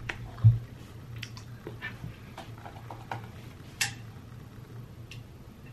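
A single low thump about half a second in, as something is set down on a desk, then scattered light clicks and taps from a laptop keyboard and trackpad, over a low steady hum.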